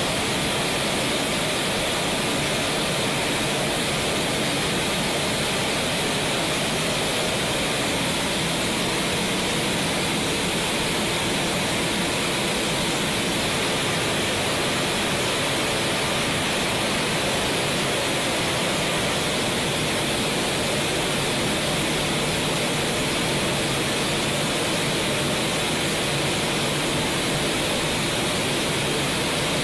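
Steady, unchanging rushing hiss with no rhythm, clicks or pitch.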